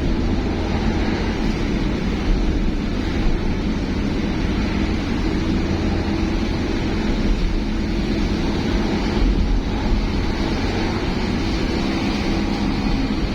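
Steady engine and road noise of a moving vehicle: a continuous low rumble with a faint hum and no marked changes.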